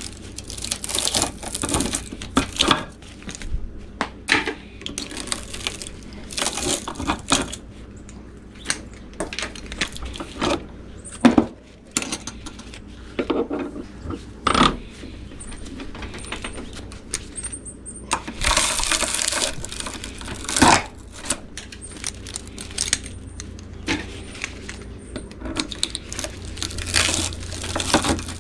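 Copper winding wire being pulled out of a steel electric-motor stator held in a bench vise with pliers: irregular metallic clinks, rattles and scraping, with a longer stretch of scraping about two-thirds of the way through.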